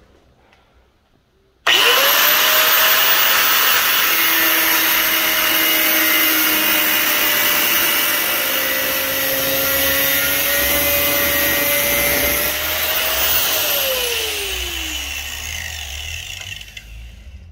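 Angle grinder switched on about two seconds in, its disc cutting through hardened circular-saw-blade steel: a loud, steady grinding over the motor's high whine. Near the end it is switched off and the whine falls in pitch as the disc spins down.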